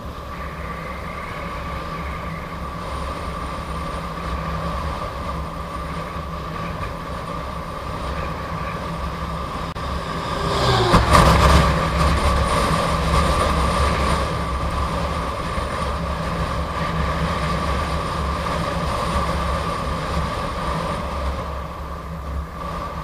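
Riding noise from a Gotway MSP electric unicycle travelling at speed on a highway: steady wind and road rumble under a constant high hum. A louder rush swells about ten seconds in and fades over the next few seconds.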